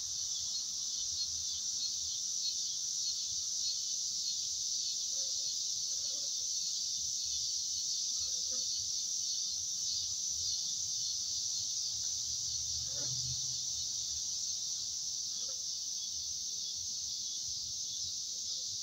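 A loud, steady chorus of insects, a continuous high-pitched shrilling without a break.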